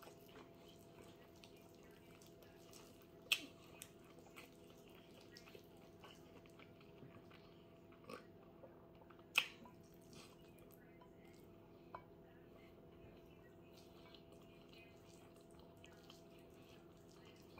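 Faint eating sounds from a person chewing a mouthful of rice and beans eaten by hand. There are a few short sharp mouth clicks, the loudest about three and nine seconds in, over a steady low hum.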